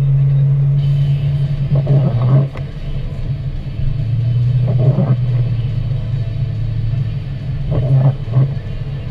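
Car engine running while driving, a steady low drone. Windshield wiper passes are heard about every three seconds.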